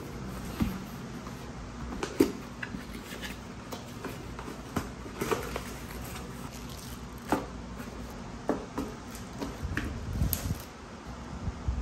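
Unboxing handling sounds: a cardboard box and a plastic-wrapped small blender jar are moved and set down on a table, giving scattered knocks, taps and light rustles over a low steady room hum.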